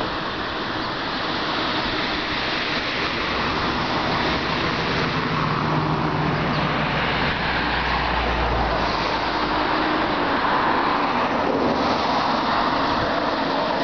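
Road traffic passing, a steady wash of tyre and engine noise, with a deeper engine rumble building over the middle and dropping away about nine seconds in.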